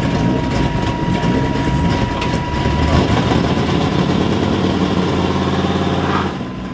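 Drift cars' engines running. A thin steady whine sits over them for the first two or three seconds, and from about three seconds in one engine holds a steady note that drops away about six seconds in.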